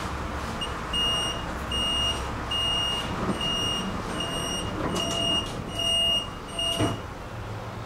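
Tram's door warning signal: a high, clear beep repeating a little faster than once a second, about eight times, ending with a thump near the end.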